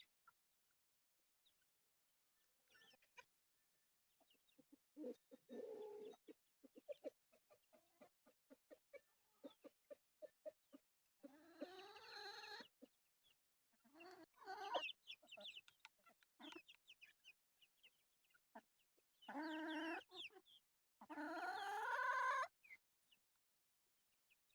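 Chickens clucking: a run of short quick clucks, then several longer drawn-out calls that rise and fall in pitch.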